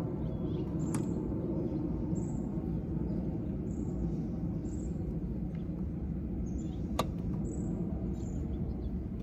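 Steady low outdoor noise with short high chirps recurring every half second to a second, and one sharp click about seven seconds in.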